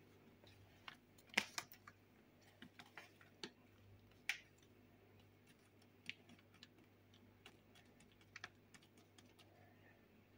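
Faint, scattered small clicks and taps of a metal spoon scooping ground chili from a plastic packet.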